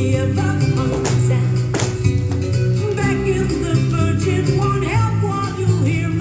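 Recorded song playing for a dance performance: guitar over a steady bass beat, with a singing voice.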